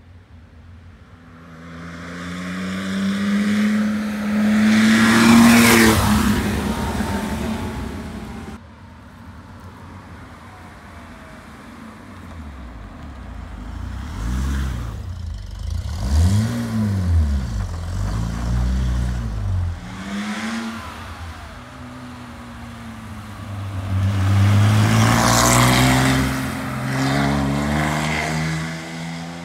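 Porsche 911S 2.7 Targa's air-cooled flat-six through a Dansk sport exhaust, driving past at speed. The revs climb to a loud peak as it passes about five seconds in, rise and fall several times around the middle, and climb again near the end.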